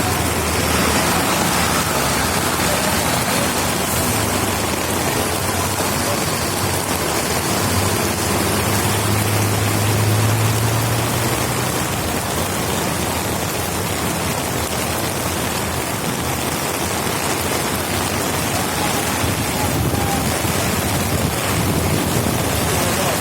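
Heavy rain falling steadily, an even dense hiss. A low hum rises and fades about halfway through.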